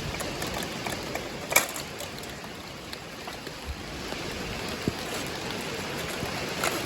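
Steady hiss of heavy rain falling, with one sharp click about one and a half seconds in.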